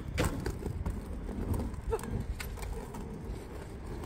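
Quad roller skate wheels rolling over rough tarmac, a steady low rumble broken by a few sharp clacks.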